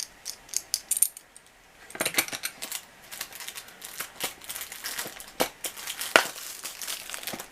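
Small metal watch-repair tools clinking and tapping against each other as they are handled, in an irregular run of sharp clicks, some with a brief metallic ring.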